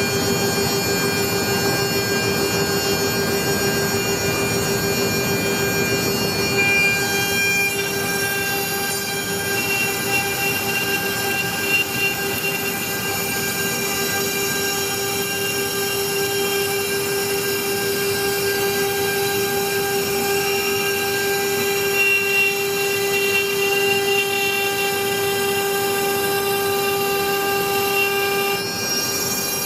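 CNC router spindle whining steadily at one high pitch as its end mill cuts a groove along the edge of a wooden board. The feed is still turned down for the first pass so as not to break the cutter. The chip-extraction vacuum is running.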